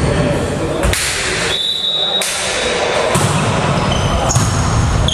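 Echoing sports-hall sound of a volleyball match between rallies: players' voices and calls, a single sharp knock about a second in, and a brief high-pitched tone just after.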